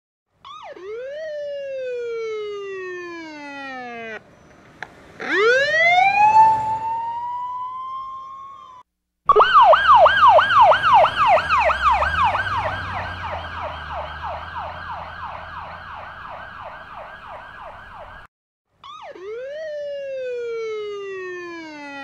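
Emergency vehicle sirens, one after another with short silent gaps. First comes a wail that jumps up and then glides slowly down, then a wail that winds up and rises. Next is a long, rapid police yelp sweeping about three times a second and fading away, and near the end the falling wail returns.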